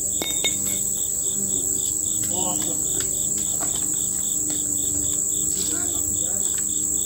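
Insects calling in the woods: a continuous high buzz with a chirping that pulses about four times a second beneath it. There are a couple of sharp clicks just after the start.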